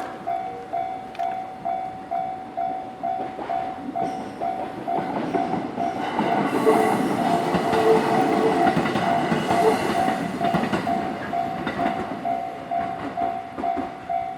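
Japanese railway level-crossing warning bell dinging steadily, about two to three electronic dings a second. A train runs over the crossing: its wheel and running noise swells about six seconds in and fades away near the end.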